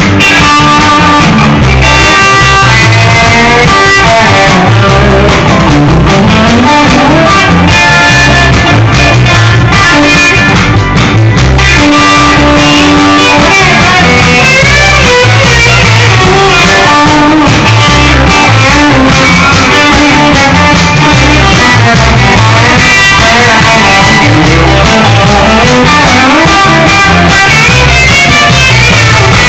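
Live band playing loud, an instrumental passage led by guitar with bending, sliding notes over a steady bass and drum beat, recorded close to full volume on a phone.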